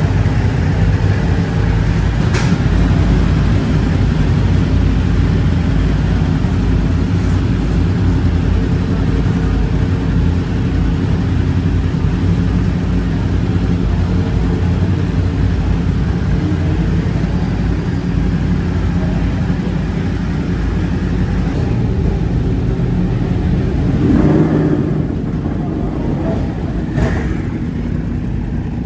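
A 2020 Yamaha R1's crossplane inline-four engine running at a fairly steady pitch, under loud rushing wind. Around 24 seconds in the engine note shifts and then settles a little quieter.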